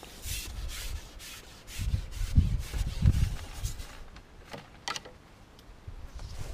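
Carbon match-fishing pole being handled and shipped back, rubbing and scraping in a quick run of short strokes, several a second, with a sharper scrape near the end, over low thuds.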